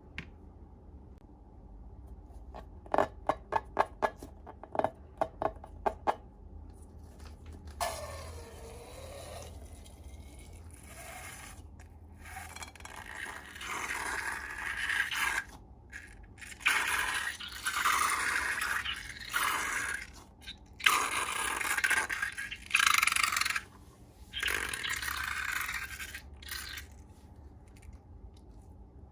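Hands working slime and balloons: a quick run of about ten sharp taps, then a long string of scraping, rubbing strokes, each a second or two long.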